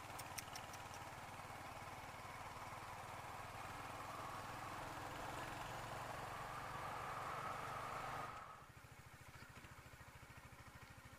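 Single-cylinder engine of a Royal Enfield Hunter 350 motorcycle running at low revs with a steady beat, under a rushing noise that builds and then cuts off sharply about eight seconds in, leaving the engine beat on its own. A few quick clicks just at the start.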